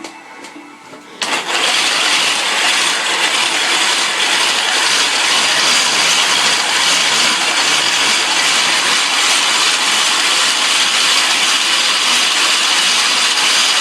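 Bicycle-powered polishing and grinding rig, its chuck-mounted wheel spinning against a copper bracelet: a loud, steady, high-pitched grinding hiss with a faint whine in it that starts abruptly about a second in.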